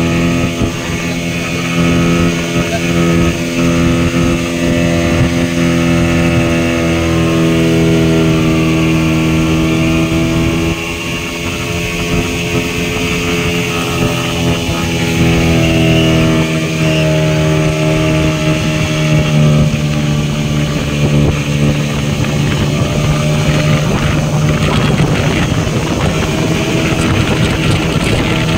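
Motorboat engine running steadily at speed while towing an inflatable donut ride, over the rush of wake and spray. The engine note drops about ten seconds in, then climbs back and shifts pitch again a few seconds later.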